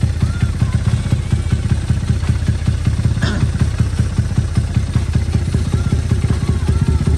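Newly rebuilt motorcycle engine running steadily, with a fast, even exhaust pulse and no change in revs. A short, sharp noise cuts through about three seconds in.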